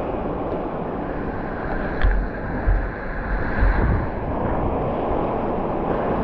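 Strong wind buffeting an action camera's microphone, with ocean surf rushing underneath and a few brief low thumps.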